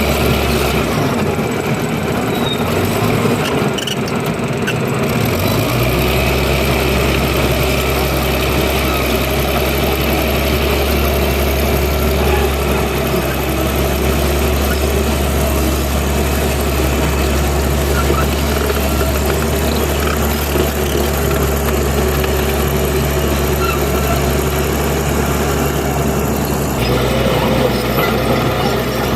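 Bulldozer's diesel engine running steadily as it works. Its deep note drops away for a few seconds near the start, then comes back and holds.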